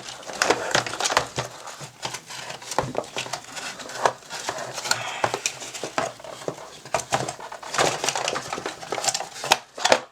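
Cardboard box and packaging being handled as a mechanical keyboard is lifted out: crinkling and rustling with many irregular clicks, taps and knocks.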